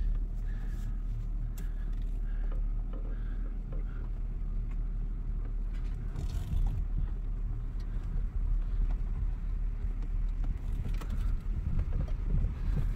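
BMW 525i driving over a rough, broken dirt road: a steady low rumble from the car and the road, with a few scattered knocks.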